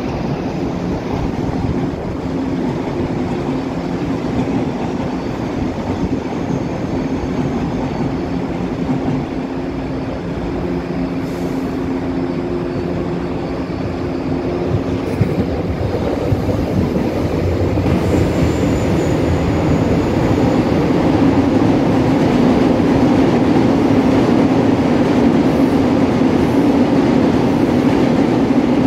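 Electric metro trains of São Paulo's Line 3 running through the station: a steady rumble with a motor hum early on, a brief faint high squeal about two-thirds of the way in, and a fleet K train growing louder from about two-thirds of the way in as it moves close alongside the platform.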